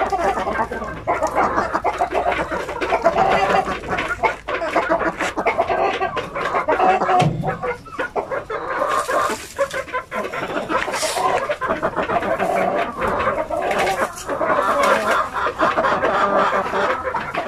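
Chickens clucking without pause, with many short clicks through it.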